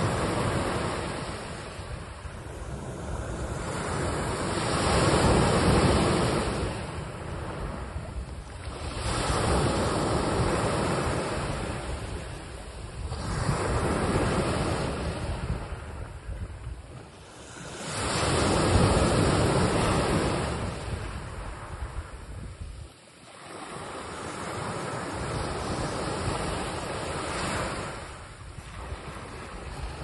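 Small waves breaking on a sandy shore and washing up the sand, the surf swelling and fading about every four to five seconds.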